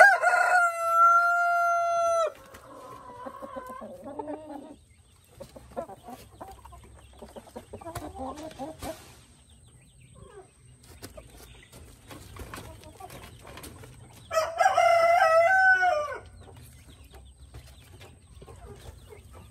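Rooster crowing twice: a long held crow at the start and another about fourteen seconds in. Hens cluck softly in between.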